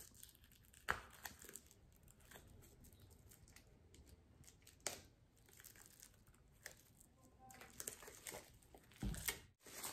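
Faint crinkling and tearing of plastic wrapping being picked open and peeled off a new book by hand, with a few sharper crackles about a second in, near the middle and near the end.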